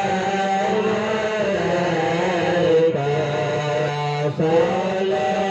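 Islamic devotional chanting (sholawat) sung in long, held, slowly wavering notes, with brief breaks about three seconds in and again near four and a half seconds.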